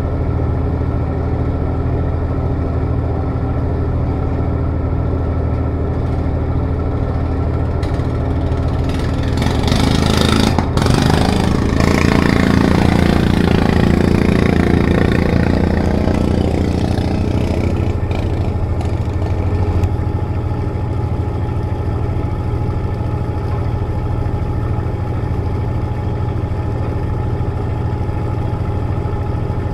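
Steady low drone of a riverboat's engine. A small motorboat passes close alongside: its engine comes up louder from about a third of the way in and fades away several seconds later.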